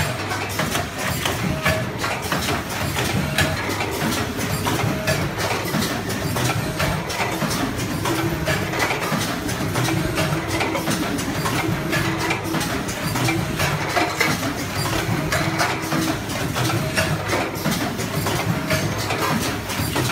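C21DX ultrasonic pyramid tea bag packing machine running alongside other packing machines: a dense, continuous mechanical clatter of rapid clicks over a steady low hum.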